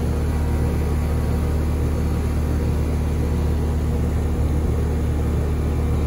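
2017 Comfortmaker 5-ton heat pump outdoor unit running in heat mode: a steady low hum from the compressor and fan.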